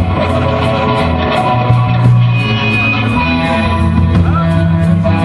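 Les Paul-style electric guitar played with a violin bow through a Marshall amp, giving long held, sliding tones over a steady bass line. A light cymbal ticking runs on top, about four times a second.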